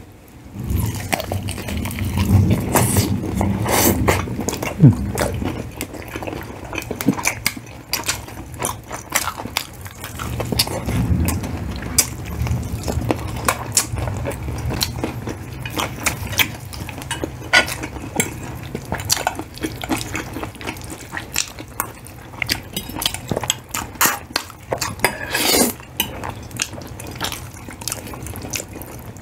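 Close-miked eating: cutlery clicking against plates in many short, sharp clinks, over the chewing and biting of fried chicken and spaghetti.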